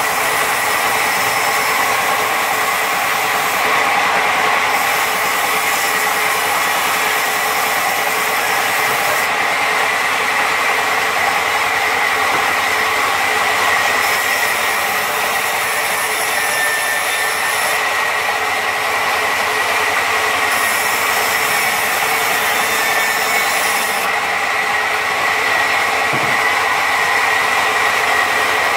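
Large log band saw running and cutting through a log: a loud, steady machine noise with a steady high whine.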